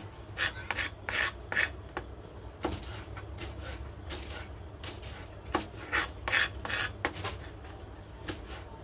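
Kitchen knife slicing green chillies on a chopping board: short knife strokes in quick runs with pauses between them.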